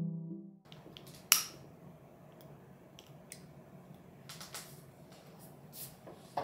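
Background piano music cuts off about half a second in. Then come small handling clicks and taps over quiet room tone, with one sharp click just over a second in and another near the end.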